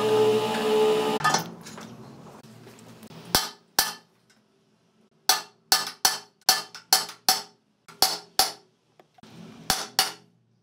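Steel hammer tapping a bearing down into an aluminium Audi transmission case: about fourteen sharp metallic strikes in short runs, each ringing briefly. Background music runs until about a second in.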